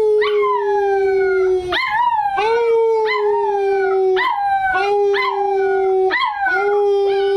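American Cocker Spaniel puppy howling: a run of short howls that each start high and slide down, one after another. A steady lower held note sounds under them, breaking off and starting again every couple of seconds.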